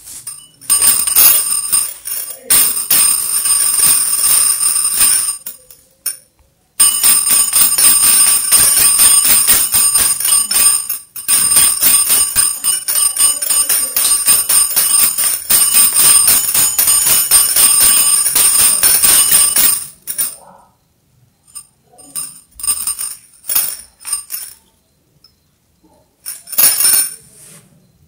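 Small jingle bells jingling as they are shaken, in two long, loud stretches with a short break about six seconds in, then only brief shakes after about twenty seconds.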